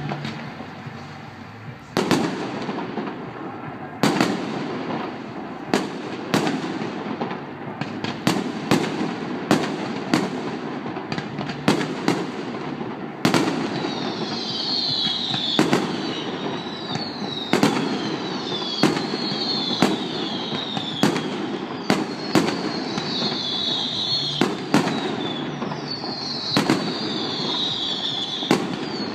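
Fireworks going off: a steady run of sharp bangs, one every second or two, over a continuous crackle. From about halfway in, a high falling whine trails after many of the bangs.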